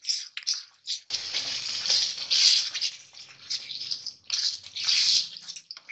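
Spatula stirring boiled peas through thick, hot tomato gravy in a kadhai: wet scraping and squelching in uneven strokes. A low hum comes in about a second in and stops near the end.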